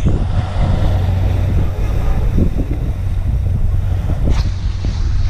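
Fishing boat's engine running in a steady low drone, with wind on the microphone and sea water rushing and splashing along the hull. A short sharp click right at the start.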